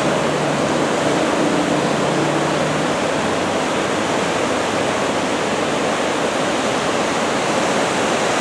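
Steady rush of ocean surf breaking along the shore under a typhoon swell.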